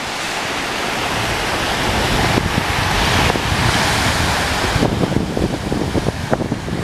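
Ocean surf washing onto a beach, swelling louder in the middle, with wind buffeting the microphone.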